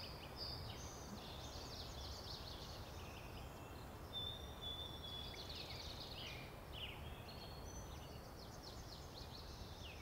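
Faint forest ambience: small songbirds twittering and chirping in quick high notes throughout, with one thin drawn-out whistled note about three seconds in, over a low steady background rumble.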